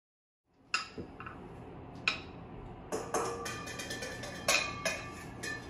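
About seven sharp clacks and clinks of small hard objects at uneven intervals, several of them ringing briefly after the strike.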